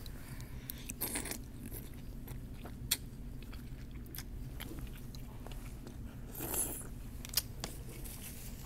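Close-up chewing of a mouthful of chicken noodle soup, with wet mouth sounds and a few sharp clicks, the strongest about 3 seconds in and near the end, over a steady low hum.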